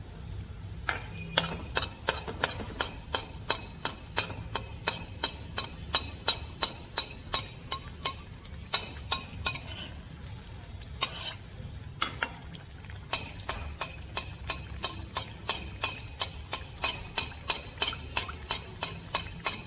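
Steel spoon tapping against a metal kadhai while hot ghee is spooned over a frying anarsa, about three taps a second; the taps thin out for a couple of seconds around the middle and then resume.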